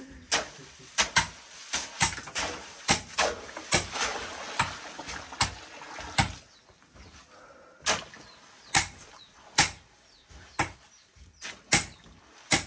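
Rocks knocking against rock, a string of sharp irregular clacks about one to two a second, as stones are laid into the bed for a house floor. There is a short lull a little after halfway.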